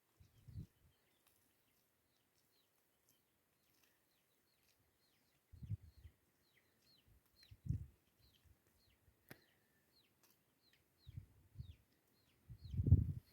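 Bird chirping over and over: short, high, falling chirps, a few a second. Several dull low thuds come in between, the loudest near the end.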